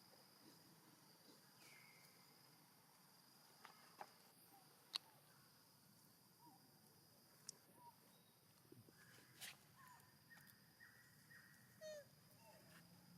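Faint, steady high insect drone, with a few soft clicks and short chirps scattered through it.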